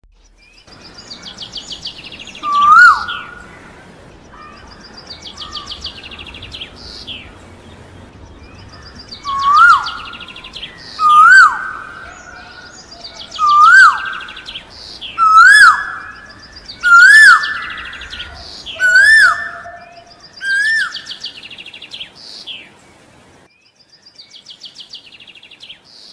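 Songbird singing a repeated phrase: a rapid high trill followed by a loud whistled note that rises and then drops, about every two seconds, over a faint outdoor background hiss that cuts off near the end, leaving one last trill.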